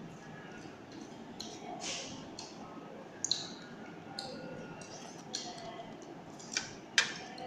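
Eating sounds from someone eating instant chicken noodles: a handful of short, sharp clicks and smacks, the loudest about seven seconds in.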